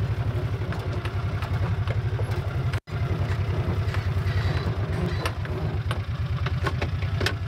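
Small gasoline engine of a hydraulic log splitter running at a steady idle, with an even low pulsing; the sound cuts out for an instant about three seconds in.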